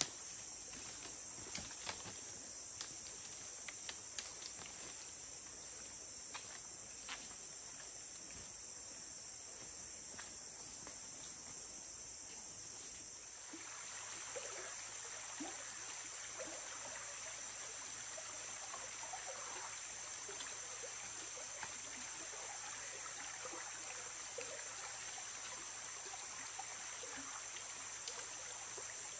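Rainforest insects making a steady high-pitched drone. In the first half there are scattered light clicks and snaps; about halfway through the flowing water of a shallow stream comes in, gurgling and trickling.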